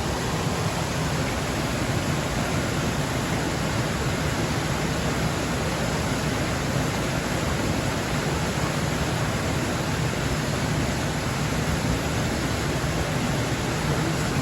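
Forest stream water flowing steadily, an even rushing hiss with no breaks.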